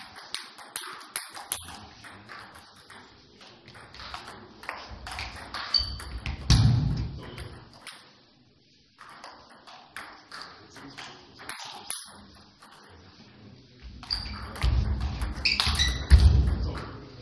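Table tennis ball clicking off bats and table in irregular series during serves and rallies. Louder low thuds come about a third of the way in and again near the end, with brief high squeaks.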